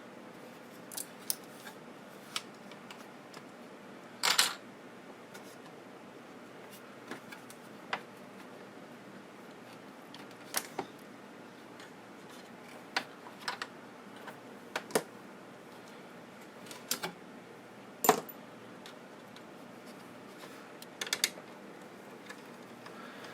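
Hands and tools working inside a CD/DVD changer: scattered, irregular clicks and light knocks of plastic and metal parts being handled, with a short rattle about four seconds in and a sharper knock near the end.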